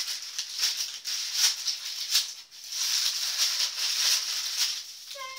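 Packaging being torn open and handled, an irregular crinkling and rustling that comes in a rapid run of small bursts.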